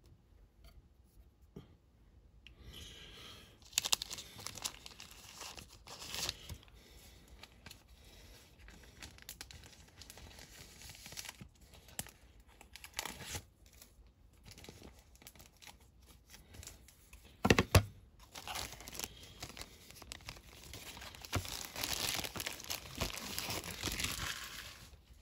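Thin plastic bags crinkling and rustling as they are handled, starting a couple of seconds in and coming and going, with a few sharp knocks, the loudest a double knock about two-thirds of the way through.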